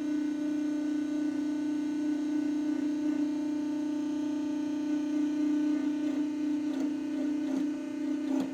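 Powered hydraulic press running loud, its pump giving a steady, strong hum with a few faint clicks near the end, while it applies a light load of a couple hundred pounds to press a logo stamp into a brass divot tool.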